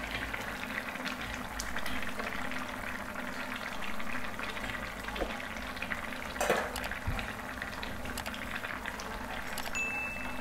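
Thick curry sauce boiling hard in an open aluminium pot, with dense popping and crackling of bursting bubbles and one louder pop past the middle.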